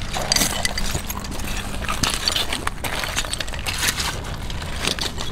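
Loose stones and pottery and glass shards clinking and crunching irregularly, as someone kneels and moves about on a rocky foreshore littered with debris.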